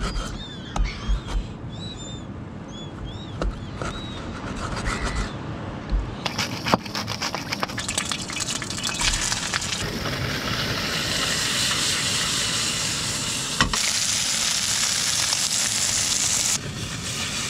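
Pieces of mulloway fillet sizzling and crackling as they fry in a stainless pan on a portable gas stove. The sizzle starts about six seconds in and grows louder about four seconds later. Before it come a few knocks of a knife on a cutting board and some high bird chirps.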